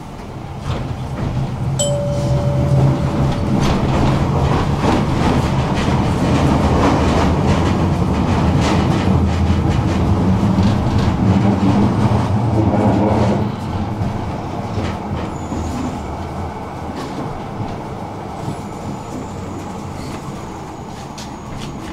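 Electric tram running on its rails, with a low motor hum and wheel rumble that builds over the first couple of seconds. About two-thirds of the way through the sound drops off suddenly and the tram carries on more quietly. A short steady tone sounds briefly about two seconds in.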